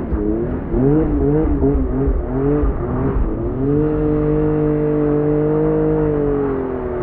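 Honda NSX V6 engine revving hard while drifting in snow: quick rising-and-falling blips of throttle for about three seconds, then held at steady high revs for about three seconds before easing off slightly near the end.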